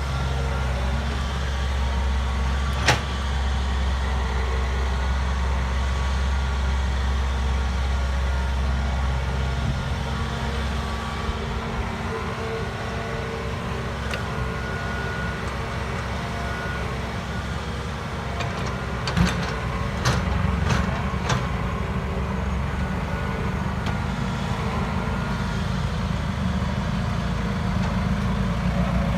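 Diesel engine of a Hitachi EX120 hydraulic excavator running steadily at work, its low note changing about ten seconds in. There is a sharp knock about three seconds in and a quick run of sharp knocks around two-thirds of the way through.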